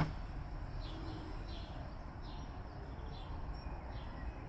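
Faint bird calls: short falling chirps repeating about once a second over a low, steady background noise, with a soft click right at the start.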